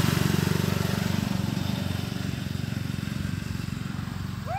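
Small single-cylinder four-stroke engine, a 79cc Power Fist OHV swapped into an Arctic Cat Kitty Cat kids' snowmobile, running steadily under way and slowly fading as the sled moves off. A short high call begins right at the end.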